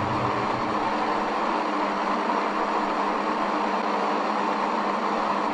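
A steady, even hiss with a faint hum underneath, unchanging throughout.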